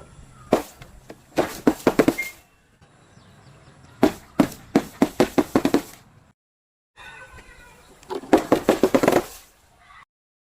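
Crunchy objects being crushed: a single crack, then three bursts of rapid crackling snaps, each about a second long. A brief dead-silent gap comes just after the middle.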